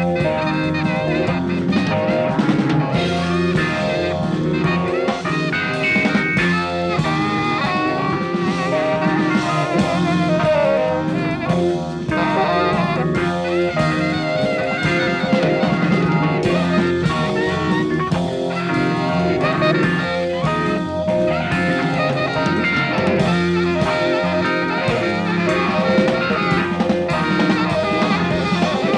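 Jazz-fusion band playing live: drum kit keeping a busy beat under a melodic lead line, with guitar-like plucked or keyboard parts and bass.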